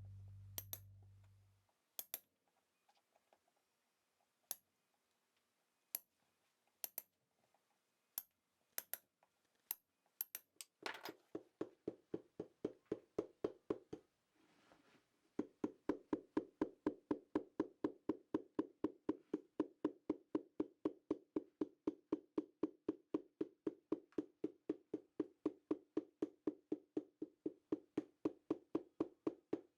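A hammer tapping on a boot's sole: a few scattered taps, then from about eleven seconds in a fast, even run of knocks, about three or four a second, each with a short hollow ring.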